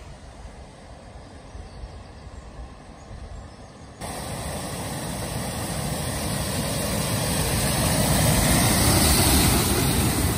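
Volkswagen Amarok pickup driving through deep floodwater, its engine running and its wheels churning up heavy spray. The rush of water and engine sets in suddenly about four seconds in and grows louder as the truck comes close and passes.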